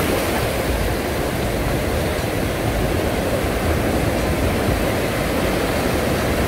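Gulf surf breaking and washing up the shallow beach, a steady rushing noise with no let-up.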